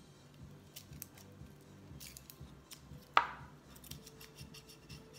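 Dry onion skin crackling faintly in small snaps as it is peeled off by hand, with one sharper knock about three seconds in.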